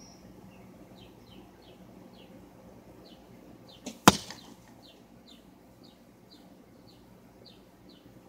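Carbon arrow from a 1997 Browning Sierra compound bow striking the target with one sharp thwack about four seconds in, a softer click a moment before it. Short high chirps repeat in the background throughout.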